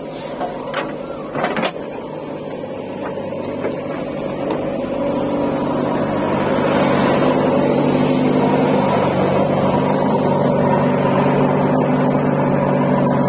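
Diesel engine of a JCB 3DX backhoe loader running at work, growing louder and steadier about five seconds in as it is revved. There is a sharp knock about a second and a half in.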